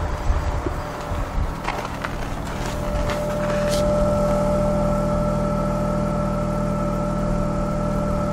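BMW 520i E39's 2.2-litre straight-six idling, heard close to the tailpipe: a steady hum with a high, even whine that sets in about three seconds in and gets a little louder. Before that, a few crunches sound, like footsteps in snow.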